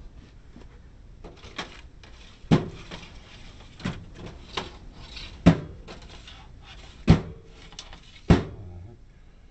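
Rummaging through hardware drawers and bins for a bolt: a series of about seven sharp knocks and clatters, roughly a second apart.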